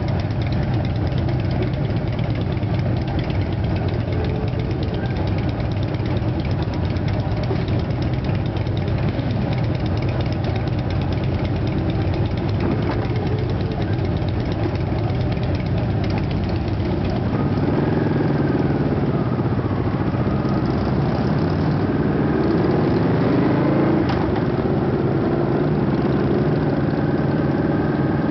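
Several motorcycle engines idling in stopped traffic. A little past halfway they rev and pull away, the engine pitch rising and falling as they go up through the gears.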